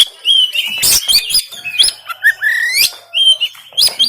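Oriental magpie-robin (kacer) singing a fast, varied run of whistles and chirps, many notes sliding up or down in pitch, mixed with sharp clipped notes.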